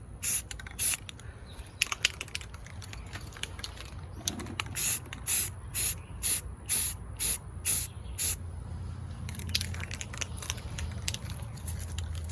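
Aerosol can of gray spray paint sprayed in short bursts, about two a second, as quick passes across a plastic console. After the first two bursts there is a pause of about three seconds, and the bursts stop for the last few seconds.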